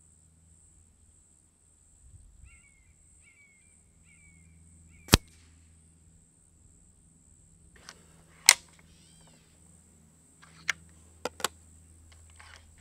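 FX Dreamline .22 regulated PCP air rifle shots heard from the target end, 50 yards downrange: two sharp cracks about three and a half seconds apart, then a few fainter clicks near the end.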